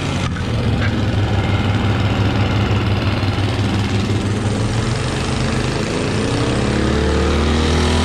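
Ariens Deluxe 24 snowblower engine running steadily under load while the machine throws snow, its pitch climbing a little in the last few seconds. It runs without spitting or sputtering, though heavy, packed snow bogs it down a little.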